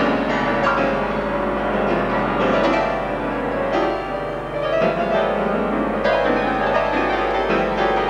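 Solo grand piano playing a dense contemporary piece: many overlapping notes with frequent sharp attacks, sounding fast and busy across the keyboard.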